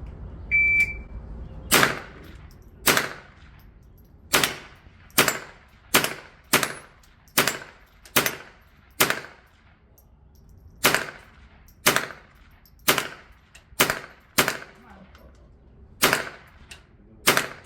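A shot timer gives one short, high start beep under a second in. Then a .22 LR gun fires about seventeen single shots at a steady pace of roughly one a second, with a pause of about two seconds near the middle.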